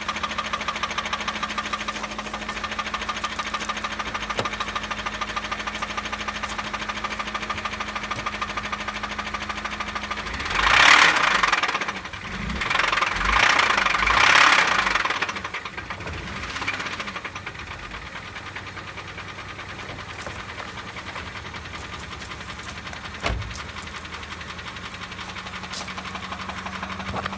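Honda Civic engine idling with a rapid, steady rod knock, the sign of a spun or worn connecting-rod bearing after the engine ran low on oil. About ten seconds in it is revved up and down a few times, then it settles back to a knocking idle.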